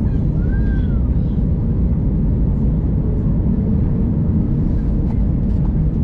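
Steady low rumble of an Airbus A321's engines and rushing air, heard from inside the passenger cabin on approach to landing.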